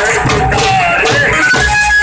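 Street drum band playing: large double-headed barrel drums beaten with sticks keep a steady beat, while a man sings a wavering melody through a microphone and loudspeaker.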